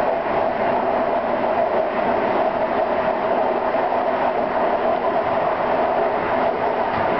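Steady running noise of a train travelling along the rails, heard from on board, with a constant hum-like band in the rumble.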